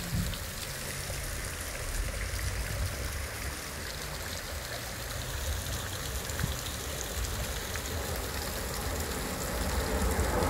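Steady rain falling on wet pavement and parked cars, an even hiss of water.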